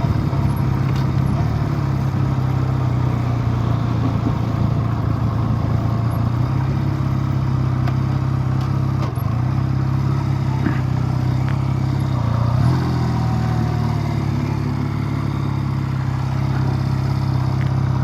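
Honda Rebel 250's parallel-twin engine idling steadily, freshly tuned with a newly replaced fuel line. Its revs rise briefly about twelve and a half seconds in.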